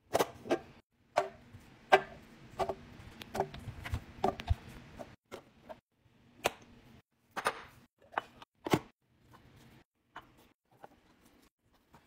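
A series of sharp clicks, taps and knocks from handling a clear plastic canister with a push-button lid and packing cucumber slices into it. The hits come every second or so and grow fainter after about nine seconds.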